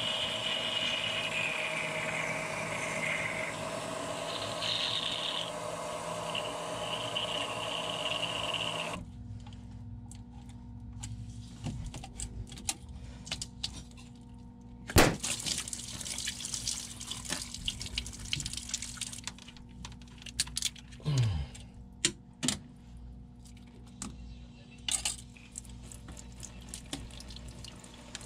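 A small 12-volt pump runs steadily with a high whine, pumping out oil, then cuts off suddenly about nine seconds in. After that come scattered clicks and knocks of hands and tools working on the engine.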